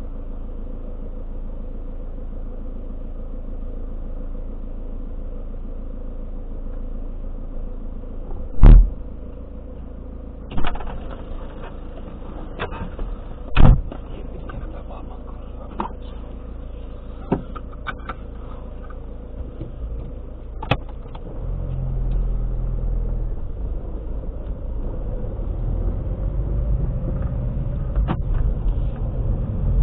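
Car engine idling, heard inside the cabin, with two loud thumps and several sharp clicks in the middle. About two-thirds of the way in, engine and road noise rise as the car pulls away.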